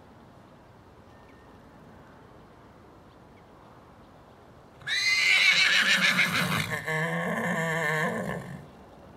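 A horse whinnying once, loudly, about five seconds in: a long neigh that starts high, drops into a lower shaking call and lasts nearly four seconds.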